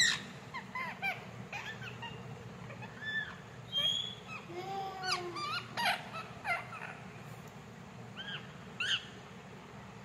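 Young parakeet calling in a series of short chirps, each rising and falling in pitch, repeated at irregular intervals and stopping about a second before the end.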